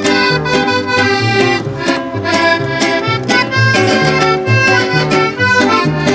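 Accordion-led Latin American folk music playing an instrumental break between sung verses, the accordion carrying the melody over bass notes on a steady beat.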